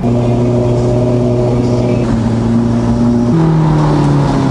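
Ferrari 458's 4.5-litre V8 running under way as the car is driven, with an even engine note that steps down in pitch about three seconds in.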